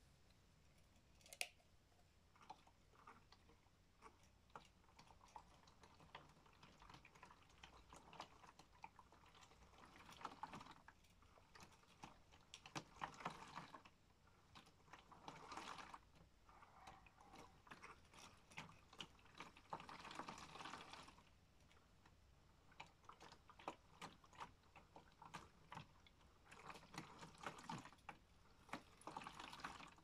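Modified Miele W1 toy washing machine on its rinse, its small drum turning with water sloshing and laundry tumbling inside. The sound is faint, with small plastic clicks from the drum and gears, and it comes in surges a few seconds long.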